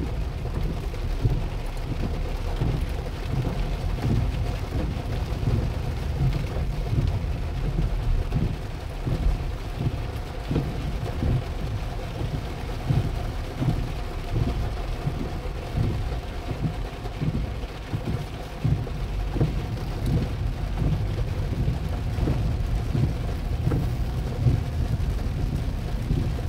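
Heavy rain falling on a car's roof and windshield, heard inside the cabin: a dense, uneven patter of drops over a steady low rumble.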